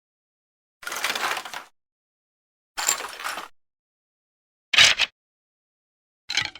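Skeleton bone sound effects, played one at a time with silence between: two dry clattering bone rattles about a second long, then two short sharp bone impacts near the end, the first of them a double hit.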